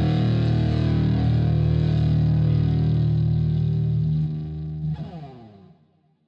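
Electric guitar played through the Omni Face germanium fuzz pedal, a fuzz built on an early 1966 germanium fuzz unit: a sustained, heavily distorted chord rings steadily, is cut off about four seconds in, and after a short falling glide in pitch fades away to silence.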